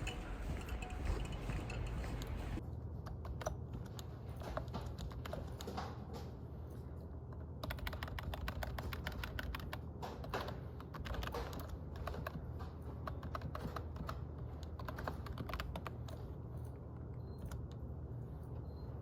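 Typing on a computer keyboard: a steady stream of quick, uneven key clicks over a low steady hum.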